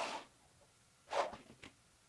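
Two short scraping knocks about a second apart, then a faint click, from metal parts or tools being handled on a workbench.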